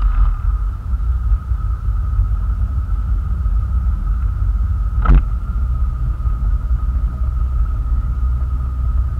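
Motorboat under way, its engine and rushing air on the stern-mounted camera making a loud, steady deep rumble with a thin steady whine above it. One sharp knock about five seconds in.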